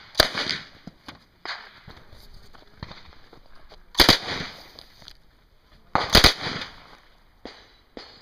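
Uzi submachine gun firing shots that echo: one at the start, one about four seconds in and a quick pair about six seconds in, with fainter pops between them.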